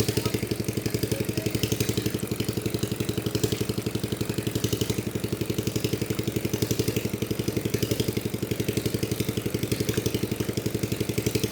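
Small engine running steadily at an even idle, with a fast regular pulse.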